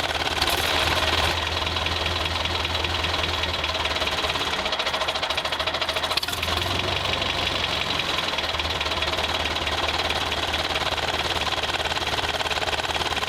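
A motor running steadily with a fast, even knocking rhythm, engine-like, with a brief rise in loudness near the start.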